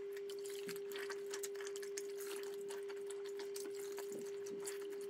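Soapy water sloshing, splashing and dripping as a soaked suede jacket is kneaded and squeezed by hand in a tub, with scattered small splashes. A steady unbroken hum of one pitch runs underneath.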